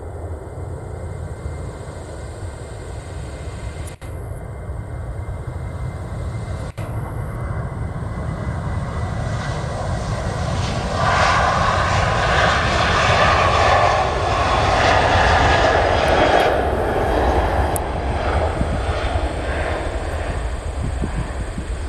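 Twin turbofan engines of a Boeing 737 airliner at takeoff power on its takeoff roll. A low rumble swells into a loud rush with a whining fan tone as the jet passes, loudest in the middle. It eases near the end as the aircraft lifts off.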